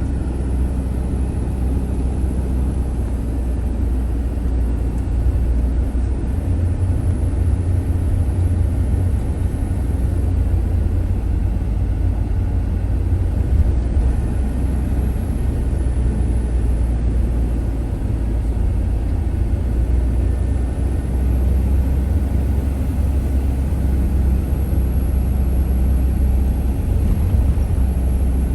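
Steady low rumble of a vehicle driving through a road tunnel: engine and tyre noise.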